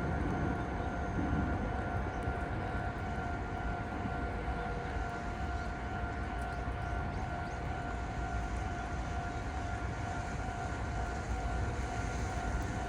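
Japanese railway level-crossing alarm sounding continuously with a steady two-tone ring, over a low rumble.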